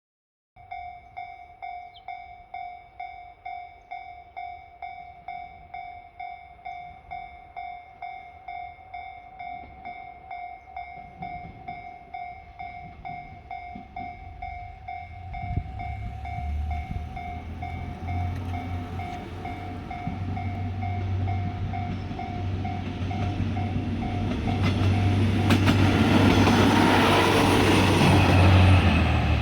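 Level-crossing warning bell ringing, a steady electronic ding a little over twice a second. A JR Shikoku Series 1200 diesel railcar approaches under it: its diesel engine rumble builds from about halfway through, and the train passes loudly near the end.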